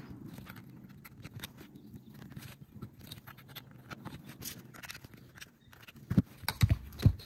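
Small plastic clicks and rustles as USB charging cables are handled and plugged into rechargeable LED pool lights and a power bank, with a few heavier dull knocks near the end.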